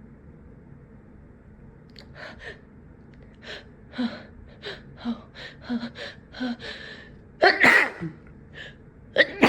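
A person's sneezing fit: a run of short, quick gasping breaths as a sneeze builds, then one loud sneeze about three-quarters of the way in, and a second sneeze breaking out near the end.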